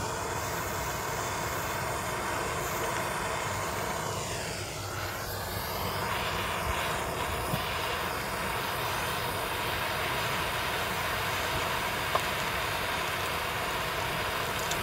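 Handheld blowtorch flame hissing steadily, its tone sweeping briefly about four to five seconds in as the flame moves. A few small sharp clicks, the clearest about twelve seconds in.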